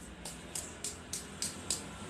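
A quick, regular series of sharp, crisp hand strikes, about three a second, starting a moment in: percussive tapping of a head massage.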